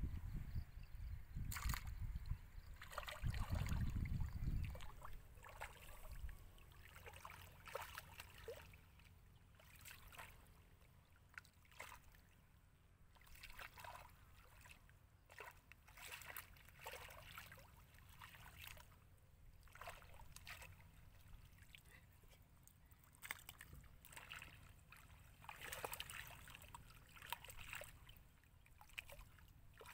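Shallow muddy water sloshing and splashing as hands and a plastic basket scoop through it, in irregular faint bursts, with a low rumble in the first few seconds.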